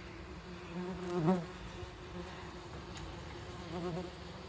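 Yellow jacket wasps' wings buzzing over a steady low hum. A louder buzz with a wavering pitch comes a little over a second in, and a weaker one comes near the end.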